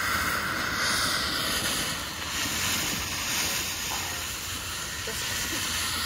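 Ground fountain firework spraying sparks with a steady hiss.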